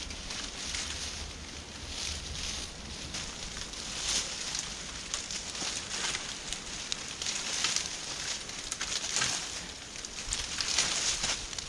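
Wind gusting through dry brush and leaves, with a rushing rustle that swells and falls every second or so and a low rumble of wind on the microphone.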